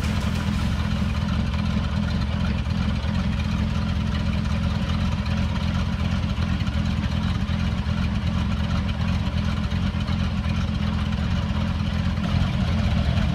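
Mercruiser 5.0 V8 sterndrive engine of a Crownline bowrider running steadily through its thru-hull exhaust, heard with the engine hatch open.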